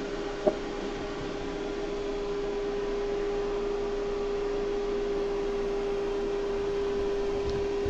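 A machine running steadily: a constant hum with one strong steady tone over a faint hiss, and a single short click about half a second in.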